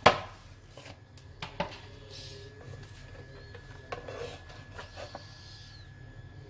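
Kitchen utensils and dishes being handled: one sharp knock at the start, then lighter taps and a couple of short scrapes.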